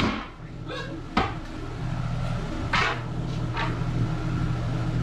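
A few sharp knocks and clunks, with a short scraping rasp about three seconds in, over a steady low hum.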